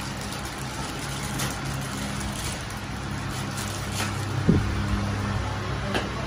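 Steady low background hum, with a few light clicks and rustles from plastic-packed bangles being handled.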